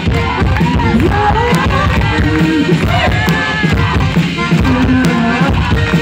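Live band music played loud: drum strokes under a melody line that slides up and down in pitch.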